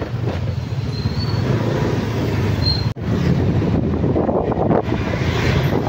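Steady rumble of a moving vehicle's engine and road noise, heard from the vehicle itself; the sound cuts out for an instant about three seconds in.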